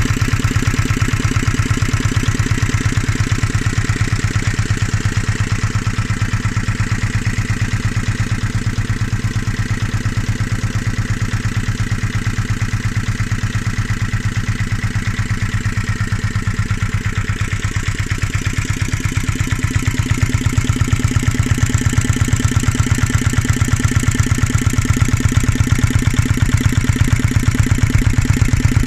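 Yanmar NT65 K single-cylinder horizontal diesel engine running steadily, an even, fast pulsing beat from each firing stroke. It grows a little louder about two-thirds of the way through.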